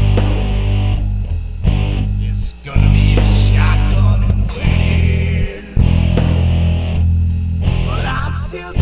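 Blues rock song: held, heavy guitar chords that break off and start again several times, with a man's singing voice coming in near the end.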